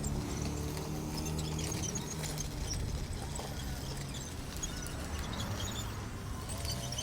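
Radio-controlled scale bulldozer running: a steady low motor hum with a light clattering.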